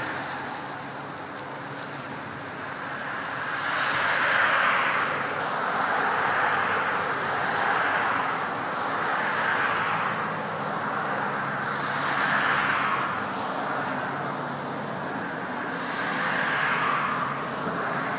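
Road traffic noise: a steady rushing that swells and fades every two seconds or so as vehicles pass, with a faint low hum underneath.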